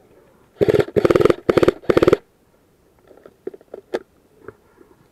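Airsoft electric rifle firing four short full-auto bursts in quick succession, each a rapid rattle of shots, followed by a few faint scattered clicks.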